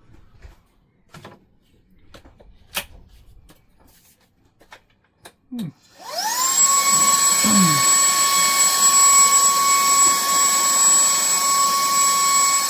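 Day Plus YC777 cordless handheld vacuum cleaner: a few clicks and knocks of handling, then about halfway through its motor is switched on and spins up quickly to a steady high-pitched whine over a rush of air.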